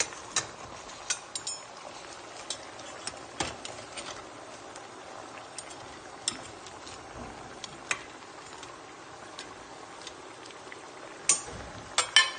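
Blue crabs pot-frying with a steady sizzle as they are stirred in a metal pot, the spoon clicking against the shells and the pot. There is a few louder clinks near the end.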